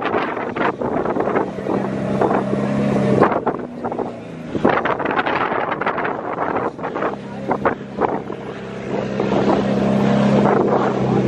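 An engine running at a steady pitch, fading out about three seconds in and returning a few seconds later, with wind buffeting the microphone.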